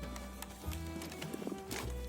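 Background music with a steady bass line and a clip-clop-like percussive beat.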